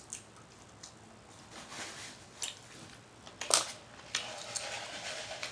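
Close-miked chewing with wet mouth smacks, scattered clicks and one sharper smack about three and a half seconds in.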